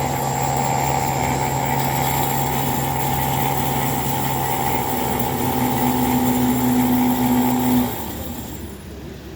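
DoAll C-916A variable-speed horizontal bandsaw running with a steady hum and a thin high whine. It winds down and stops about eight seconds in.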